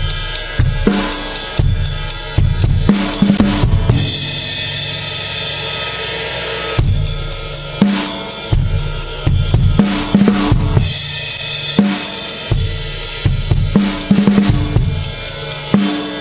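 2007 Pearl Vision drum kit played: a beat of kick and snare with tom fills, then a Zildjian crash cymbal struck about four seconds in and left ringing for nearly three seconds before the groove and more tom fills start again.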